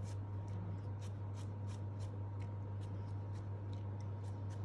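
Silicone pastry brush brushing egg wash onto raw pie pastry and dipping into the egg bowl: a quick, irregular run of soft swishes, about three or four a second. A steady low hum runs underneath.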